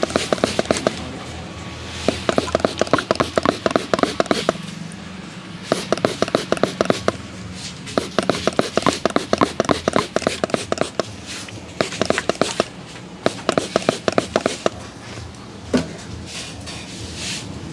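Barber's hands rapidly patting and slapping a customer's head and body in a percussive massage: fast runs of sharp hand strikes, several a second, in bursts of one to three seconds with short pauses between.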